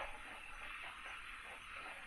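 Outdoor nature ambience: a steady hiss with a few short, faint chirps or calls scattered through it.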